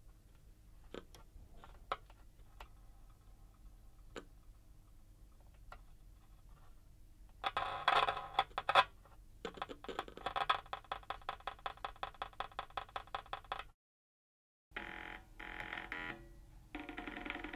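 Small loudspeaker drivers resting on a cymbal and a snare drum, driven by the exposed circuit board of a BOSS DD-6 delay pedal as wires are touched to it: scattered clicks and crackles at first, then about seven seconds in a loud, glitchy electronic buzz that breaks into a fast pulse of three or four a second. After a brief dropout near the end, buzzing tones come from speakers set on a hi-hat cymbal.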